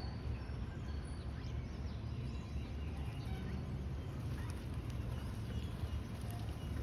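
Small pet love birds chirping and twittering: many short, high calls overlapping throughout, over a steady low rumble.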